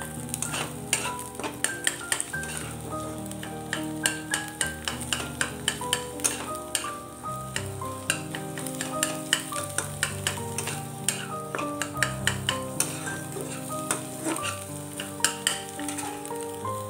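Flat steel spatula scraping and knocking against a wok in quick, irregular strokes while scrambled egg fries in oil. Background music with held notes plays underneath.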